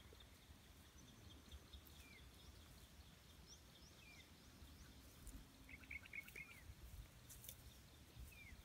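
Near-silent open-air ambience with a few faint, short bird chirps: single falling chirps about two, four and eight seconds in, and a quick run of chirps around six seconds.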